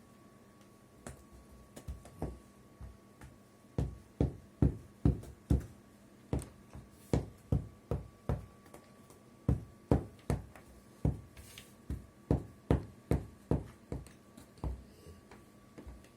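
A Cane Corso's tail knocking against a hard surface in a long, uneven run of knocks, about two a second. They start faint, grow loud, and fade near the end.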